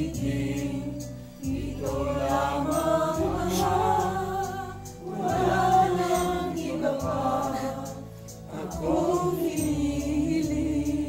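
A group of people singing a worship hymn together in lines of two to three seconds, over a steady low accompaniment.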